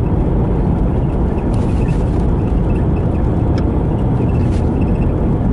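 A car driving at a steady speed: continuous road and engine noise, even and low-pitched.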